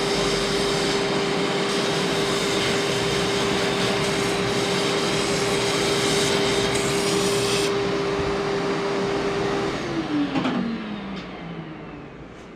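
Vertical milling machine running an end mill through a red oak board: a steady motor hum under the hiss of cutting. The cutting noise stops about eight seconds in; a couple of seconds later the spindle is switched off and its hum falls in pitch as it winds down.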